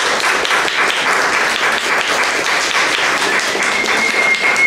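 Applause: a group of people clapping their hands steadily and densely.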